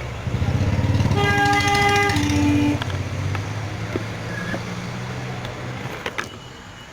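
Motorcycle engine running past, loudest in the first three seconds and fading away, with a horn sounding for about a second and a half.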